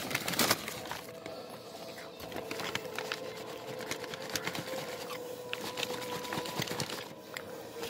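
Paper burger wrapper crinkling and crackling as it is handled close to the microphone, in irregular bursts, loudest just after the start. A faint steady tone runs underneath through the middle.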